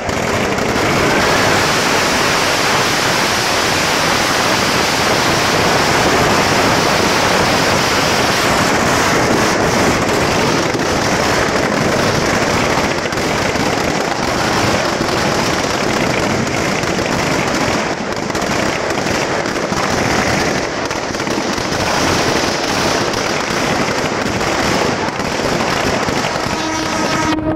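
Firecrackers packed inside a burning Ravana effigy going off in a loud, dense, unbroken crackle of bangs.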